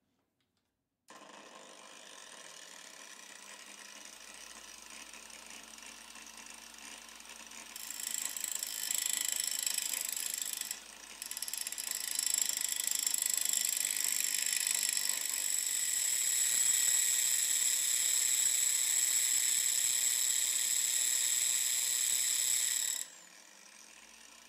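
Power-tool motors start up and run. From about 8 seconds in, a loud, steady, high-pitched grinding sets in as a threaded steel point, spun in an electric drill's chuck, is ground to a cone against an angle grinder's abrasive disc. The grinding breaks off briefly once and stops suddenly near the end, leaving only the motors running.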